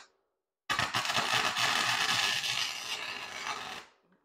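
Electric welding arc crackling as steel is welded: about three seconds of continuous arc crackle starting just under a second in, tapering off near the end.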